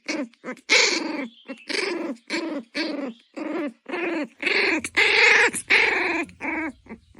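A puppy whining and yelping in a quick run of short cries, two to three a second, each rising and falling in pitch.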